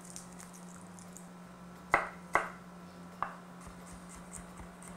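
Chef's knife cutting garlic cloves on a wooden cutting board: three sharp knocks of the blade, two close together about two seconds in and a third a little after three seconds.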